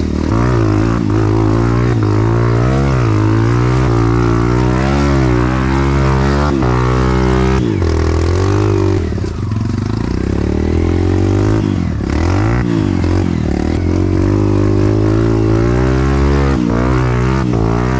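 Enduro dirt bike engine running hard on a muddy trail, its revs rising and falling repeatedly with the throttle. The revs drop briefly around nine seconds in, then pick back up.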